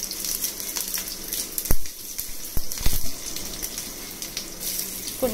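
Crushed garlic and mustard seeds sizzling in hot oil in a steel frying pan, with a few sharp clicks about two and three seconds in.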